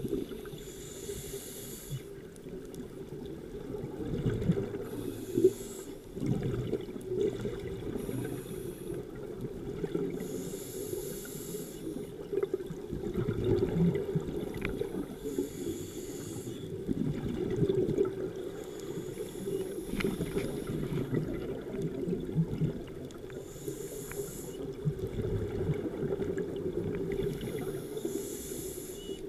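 Scuba regulator breathing heard underwater: a hissing inhale through the demand valve about every three to four seconds, with the low rumble and gurgle of exhaled bubbles in between.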